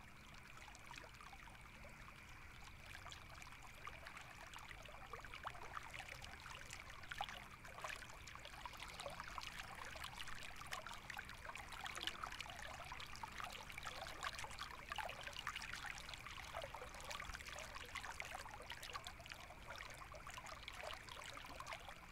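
Steady rain: a dense patter of small drops with trickling water, and a faint steady high tone underneath.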